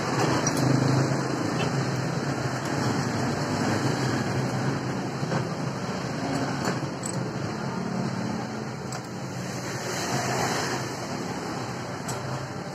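Steady background traffic rumble, with a few faint metallic clicks as a circular saw blade and its flange nut are fitted by hand onto a switched-off angle grinder.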